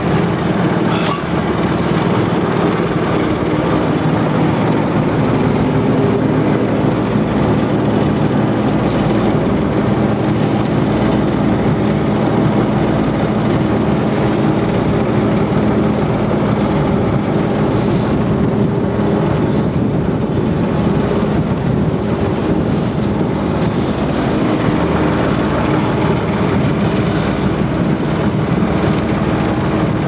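Small tour boat's engine running steadily under way, a constant drone with several low hum tones.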